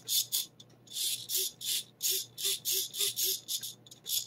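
Small metal throttle linkage and return spring worked back and forth by hand, giving repeated short rubbing swishes about twice a second with faint short squeaks.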